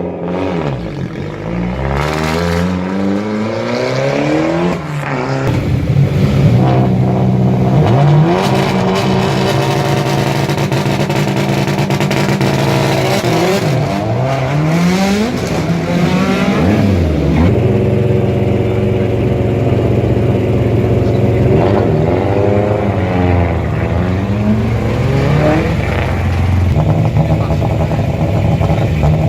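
Rally car engines running loud, held at steady revs and repeatedly revved up and dropping back, with a strong climb in revs in the first few seconds.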